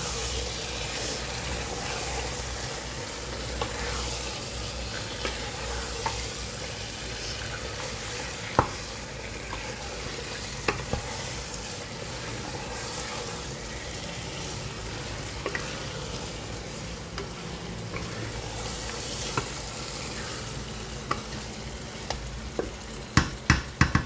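Chicken frying in spicy masala in a granite-coated pot: a steady sizzle as the pieces are stirred and turned with a wooden spatula, with a few scrapes and knocks. Near the end comes a quick run of knocks, several a second.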